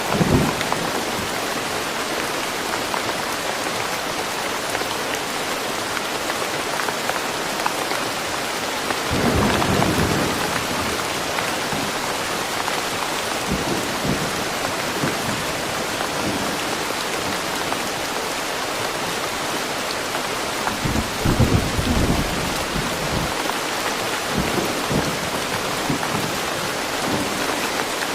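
Steady rain falling on foliage and the ground, a dense even hiss, with brief low rumbling swells about a third of the way in and again near two-thirds.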